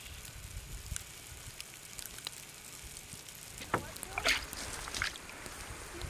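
Wind rumbling on the microphone outdoors, with scattered faint clicks and a few short, high calls or voice sounds about four seconds in.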